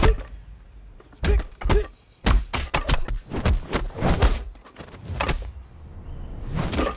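Wooden kung fu training dummy being struck on its wooden arms by hands and forearms: an uneven series of about a dozen sharp wooden knocks and thuds, coming fastest in a quick run through the middle.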